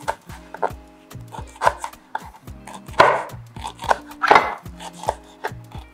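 Knife chopping uziza leaves on a cutting board: quick, irregular strokes two or three a second, with two louder, longer strokes about three and four seconds in.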